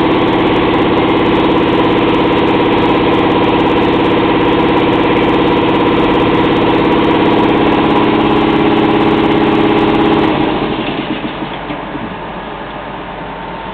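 An engine running steadily at idle, then shut off about ten seconds in, leaving a quieter steady hum.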